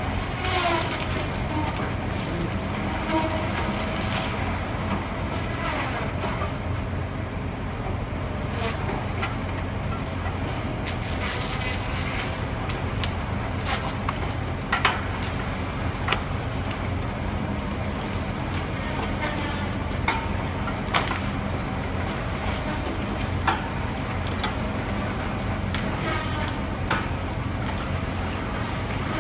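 John Deere 953K tracked feller buncher working at a distance: its diesel engine drones steadily, with sharp cracks and snaps of wood as trees are cut and bunched, and a few falling whines near the start and about six seconds in.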